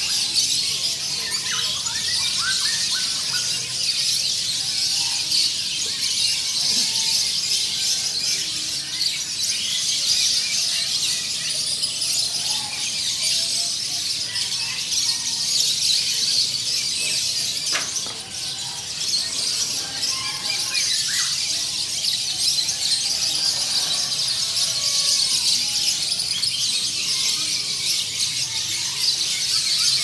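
Chorus of many caged songbirds of mixed species singing and chirping at once: a dense, unbroken high twittering with scattered clearer whistled notes rising and falling beneath it.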